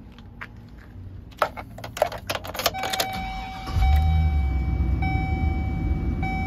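Keys jangling and clicking in the ignition, then a dashboard warning chime sounding in long repeated tones. Then the van's 6.0 L V8 starts and settles into a steady idle under the chime.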